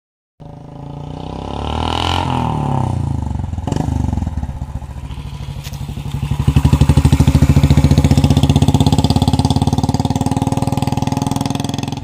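Royal Enfield Bullet BS4 motorcycle's single-cylinder engine being ridden, with an even thumping exhaust beat that rises and falls with the throttle. It is loudest about six seconds in as the bike passes close, then eases slightly as it rides away.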